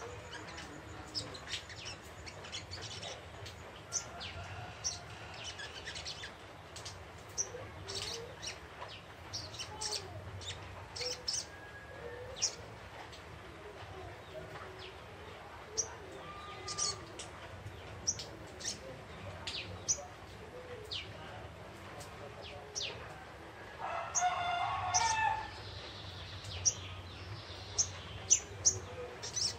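A young sunbird (sogon ijoan) chirping: many short, sharp, high-pitched chirps at irregular intervals. About three-quarters of the way through, a rooster crows once in the background, the loudest sound here.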